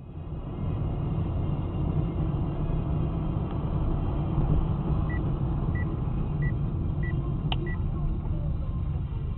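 Steady low rumble of road and engine noise inside a moving car's cabin. From about five seconds in, five short electronic beeps come evenly spaced, a little over half a second apart, with a single sharp click between the last two.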